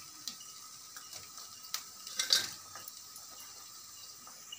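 Fried raw-banana pieces being tipped and pushed off a steel plate into a pot of curry: a few light clinks of metal on metal, then a louder clatter and scrape about two seconds in.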